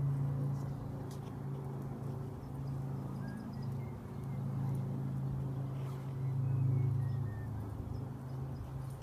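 Low, steady engine hum, likely from a passing vehicle, that swells and fades a few times and is loudest about two-thirds of the way through, with a few faint bird chirps above it.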